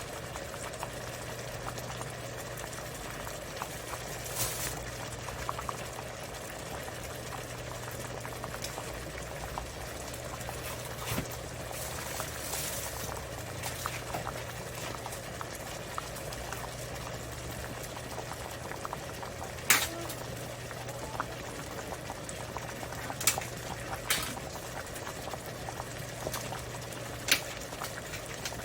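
Pot of potato gochujang stew simmering with steady bubbling, and a few sharp clinks of a utensil against the pot or bowl in the second half.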